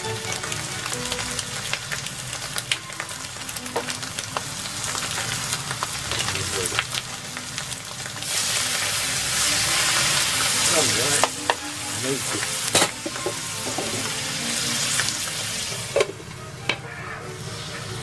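Eggs and ham frying in a skillet, a steady sizzle that swells louder for about three seconds from roughly eight seconds in, as pats of butter go into the hot pan. A few sharp knocks come in the later half.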